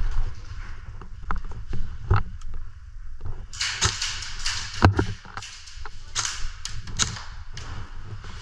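Footsteps of someone running on crunchy ground: about three short scuffing steps a second, starting about three and a half seconds in, after a few scattered knocks and handling noises.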